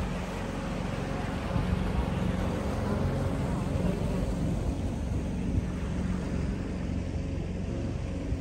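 Motorboat engines running with a steady low hum.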